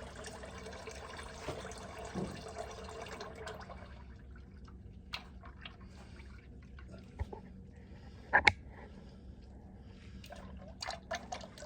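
Engine oil pouring from an open drain plug into a drain pan; about four seconds in the stream fades, leaving scattered drips and a few small clicks, one louder than the rest near the end.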